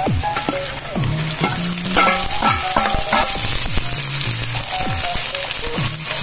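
Sliced bell peppers frying with onion, garlic and ginger in hot oil in a stainless steel pan, sizzling steadily, with a metal spatula scraping and clinking against the pan as they are stirred.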